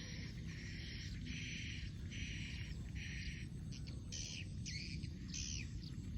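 Wild animal calls outdoors: a steady run of short, buzzy calls, about three every two seconds, changing into bending, swooping notes toward the end, over a low rumbling background.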